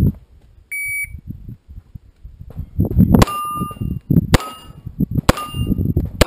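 A shot timer beeps once, giving the start signal, then a handgun fires four shots about a second apart, each followed by the ringing of a steel plate being hit.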